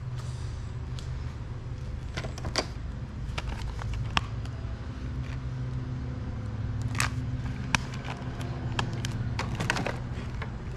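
Hands handling a plastic PS4 game case and guitar controllers: scattered sharp clicks and taps as the case is opened, over a steady low rumble.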